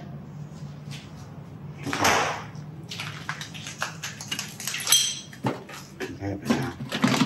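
Footsteps crunching over broken glass and rubble: one louder scrape about two seconds in, then a run of quick clicks and crackles of debris underfoot.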